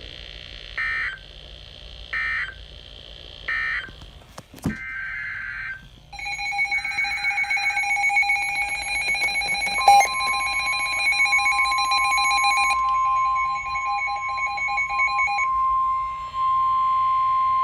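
Emergency Alert System data bursts: three short warbling bursts of SAME digital tones, a click, then a loud steady EAS alert tone. A single steady tone, typical of the NOAA Weather Radio 1050 Hz warning alarm, joins partway through, outlasts the first tone and cuts off abruptly.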